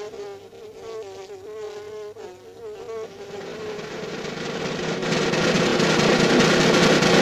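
A buzzing, wavering tone for about three seconds, then a noisy roll that swells steadily louder and breaks off near the end, a build-up like a drumroll before a flourish.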